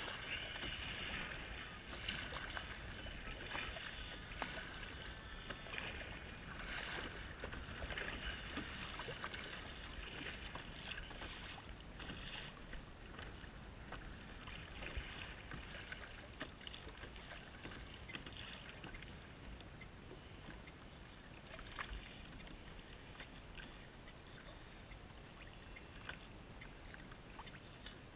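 Kayak paddle strokes splashing and water lapping against a plastic kayak hull on choppy sea water, with irregular small splashes throughout.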